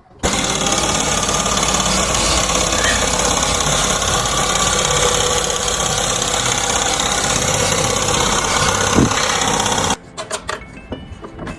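Car engine running steadily for about ten seconds, then cutting off suddenly near the end.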